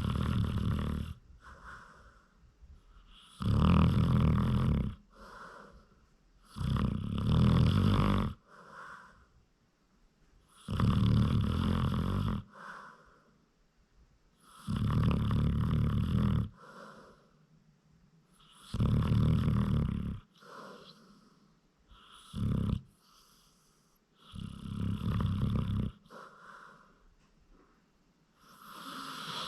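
A sleeping dog snoring: loud bubbling snores, like water on the boil, each a second or two long and coming about every four seconds, with quieter breaths between.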